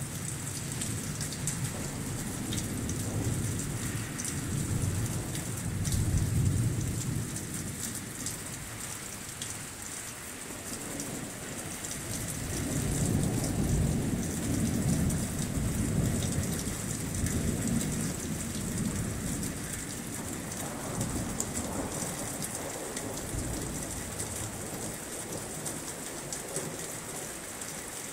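Steady heavy rain hissing and pattering, with rolling thunder rumbling underneath: one roll swelling about six seconds in, and a longer one from about twelve to eighteen seconds in.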